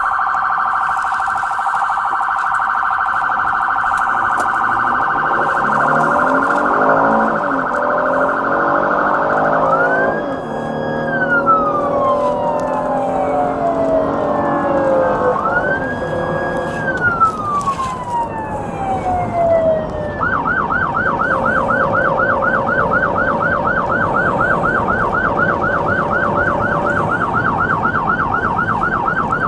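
Police car siren: a fast pulsing tone for about ten seconds, then two long wails that climb quickly, hold and slowly fall, then a rapid yelp from about twenty seconds in.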